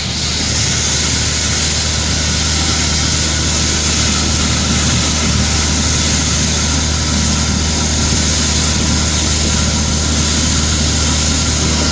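Vacuum tanker's engine and vacuum pump running steadily, with a strong steady hiss of the suction hose drawing liquid out of the cesspit; the hiss picks up right at the start.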